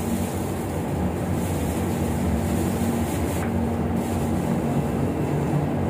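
Boat's engine running steadily, a continuous low drone.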